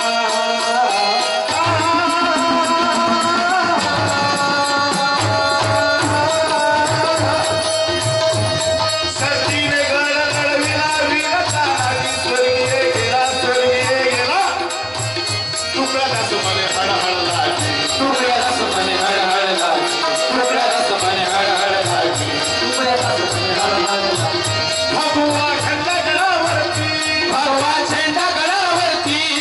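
Male voices singing a Marathi devotional bhajan, the lead singer holding long, bending notes, over a steady barrel-drum beat and fast metallic ticking of hand percussion.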